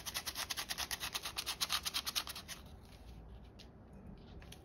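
Baking powder being shaken into the mixing bowl: a fast, even dry scratchy rasping of about eight strokes a second, which stops about two and a half seconds in, followed by a few faint light taps.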